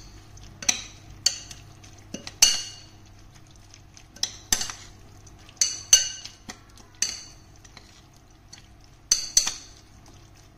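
A metal spoon stirring a wet sauce mixture in a plate, knocking against the plate in sharp, irregular clinks with a short ring, a dozen or so over the stretch.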